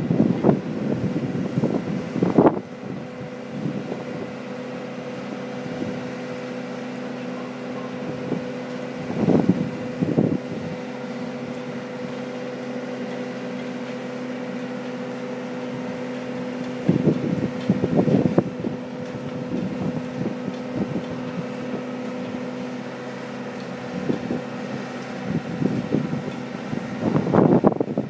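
Atalanta 26 yacht's engine running at a steady hum as the boat motors away, fading out near the end, with gusts of wind buffeting the microphone several times.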